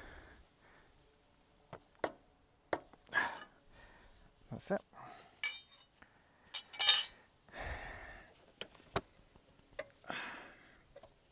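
Steel spanner knocking and clinking against the metal preload collar and locking ring of a Suzuki DR650's rear shock as they are tightened. A run of sharp metallic taps, with two bright ringing clinks past the middle, the second the loudest.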